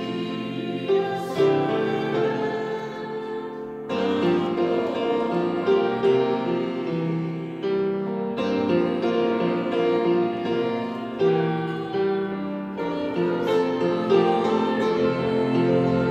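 A woman singing a hymn to grand piano accompaniment.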